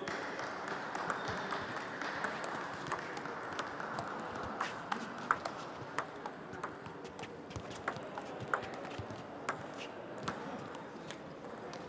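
Table tennis rally: the ball clicking sharply and irregularly off the rubber-faced paddles and the table top, many times, with fainter ball clicks from neighbouring tables over a steady murmur in the hall.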